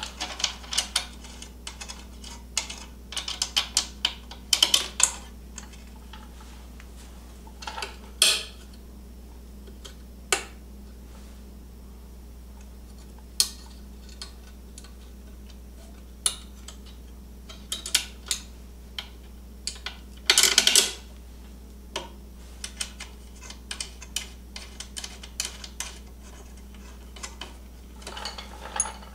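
Irregular metallic clicks and clinks of a wrench and terminal hardware as battery cable terminals are fitted and tightened on a snowmobile battery. They are denser in the first few seconds, with a louder clatter about two-thirds of the way through.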